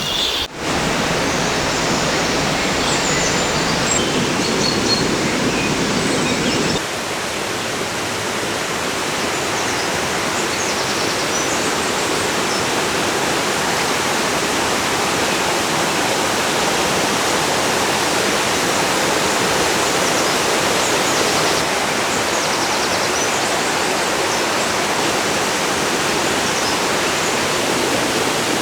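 River water rushing over rocks, a steady loud hiss of moving water. A few faint bird chirps sound over it in the first several seconds.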